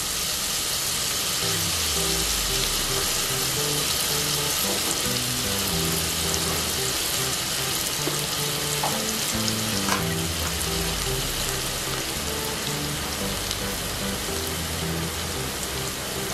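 Minced garlic sizzling steadily as it fries in hot margarine and oil, toasting at the start of a sauté, with a few faint clicks.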